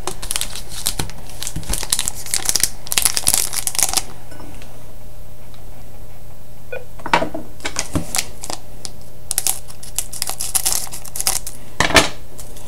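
Trading card pack wrapper crinkling and tearing as it is handled and opened, in several bursts with a louder crackle near the end.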